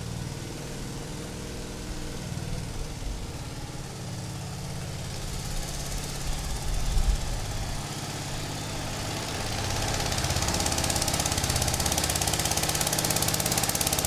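Undersized engine powering the silo door system, running steadily with a fast firing rhythm. There are a few louder knocks about six to seven seconds in, and it gets louder about ten seconds in.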